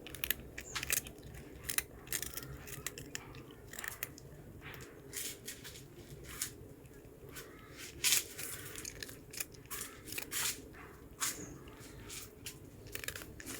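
A cat biting and chewing a murukku, a hard fried crunchy snack, with loud, irregular crunches, the loudest about eight seconds in.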